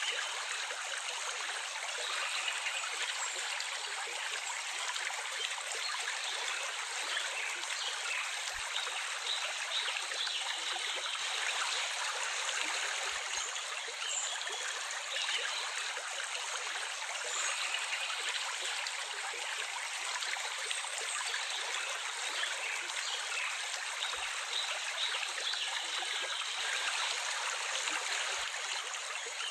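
Running water of a small stream, a steady even rushing with little low rumble.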